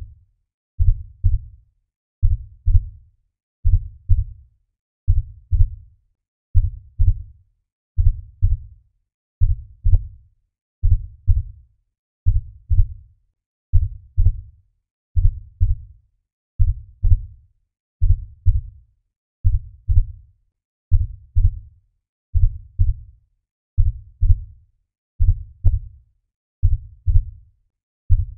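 Heartbeat sound, most likely a laid-over sound effect: paired low thumps, lub-dub, repeating steadily about every one and a half seconds.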